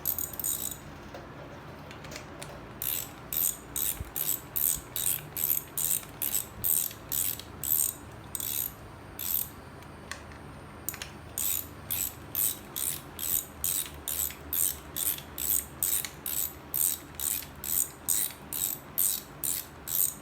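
Hand ratchet clicking in quick, even strokes, about two to three a second, as bolts are run in during carburetor installation. It starts about three seconds in and pauses briefly about ten seconds in before carrying on.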